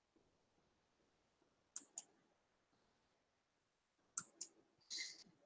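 Computer mouse button clicks, two quick pairs about two seconds apart, followed by a brief soft hiss near the end.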